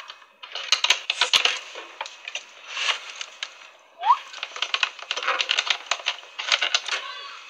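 Pliers working on copper refrigeration tubing at a fridge compressor: a dense run of small metallic clicks, crackles and scrapes, with a short rising squeak about four seconds in.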